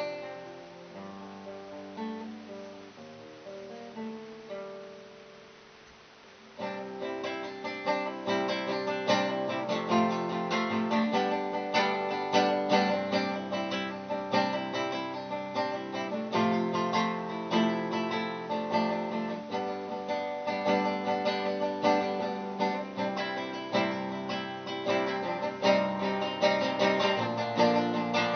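Solo nylon-string classical guitar played fingerstyle. A few soft notes ring and fade for the first six seconds or so, then the playing turns suddenly louder into a busy passage of quick plucked notes.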